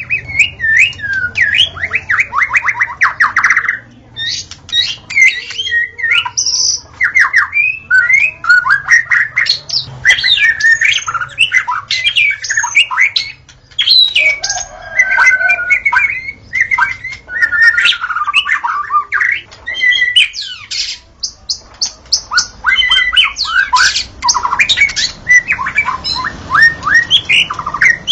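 White-rumped shama (murai batu) singing: a rapid, varied run of whistles, fast trills and harsh chattering notes, one phrase after another with only brief pauses.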